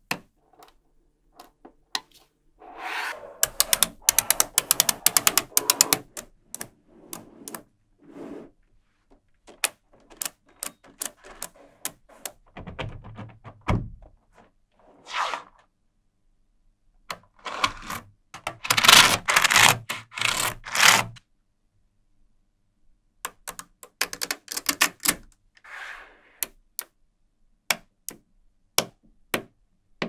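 Small magnetic metal balls clicking and snapping together as they are stacked and pressed into shape by hand: scattered single clicks, with several runs of quick clicking and rattling where many balls snap on at once.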